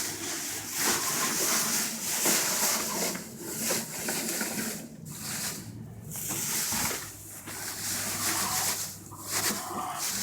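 Dry hay rustling and crunching as armfuls are pulled and spread by hand, in uneven waves with brief pauses.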